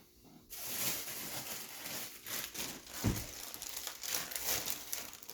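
Crinkling of packaging being handled and opened, a continuous crackle with a soft thump about three seconds in.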